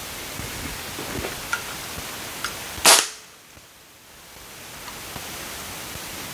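A single shot from a Benjamin Armada PCP air rifle fitted with a 3D-printed suppressor (baffle design F): one short, sharp crack about three seconds in, measured at about 101 dB. A few faint ticks come before it over a steady hiss.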